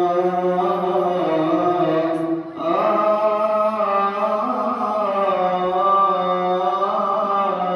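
A priest's solo voice chanting a melismatic Coptic liturgical hymn, its melody winding up and down over a steady low drone, with a brief breath about two and a half seconds in.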